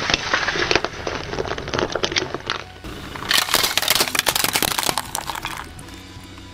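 A car tyre crushing a pet bowl full of dry pet food: dense crackling and crunching as the bowl shatters and the kibble is ground under the wheel. It comes in two long runs, the second starting about three seconds in, and dies away near the end.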